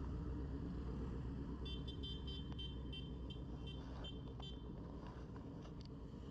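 A group of motorcycle engines idling together in a low, steady rumble that slowly fades away. From about two seconds in, a high, fast-flickering beeping sounds for a couple of seconds.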